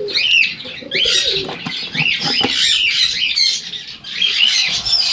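Caged cockatiels calling, with repeated high chirping calls that rise and fall in pitch, several overlapping.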